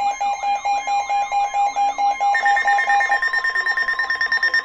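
Emergency alert tones for a severe thunderstorm warning: a steady high alert tone under several layered alarm sounds, a rapid pulsing beep and a repeating up-and-down warble. About two seconds in a higher steady tone joins, and the pulsing beep stops about three seconds in.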